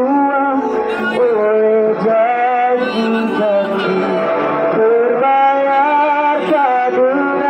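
Music with a solo voice singing a slow melody in long held notes that slide up and down between pitches.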